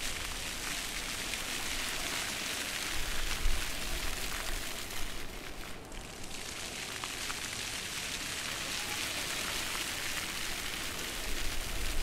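Floor-level fountain jets shooting up and splashing back onto a wet, shallow pool: a steady hiss of falling water. It thins out about halfway through as fewer jets run, then builds up again near the end.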